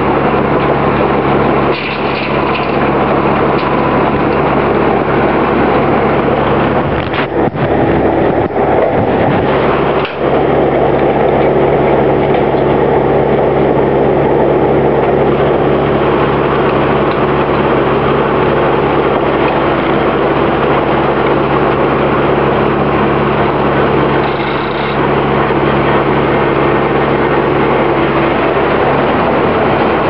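Early 20th-century Oxford Foundry & Machine Co. circular sawmill running without cutting, its saw and drive giving a steady mechanical hum, with a few knocks about seven to ten seconds in as the log is handled on the carriage.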